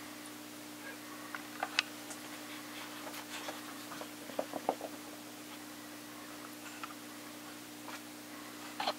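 Two cats play-fighting on carpet: scattered soft taps, scuffs and scratches of paws, bunched in a quick flurry about four seconds in, over a steady low hum.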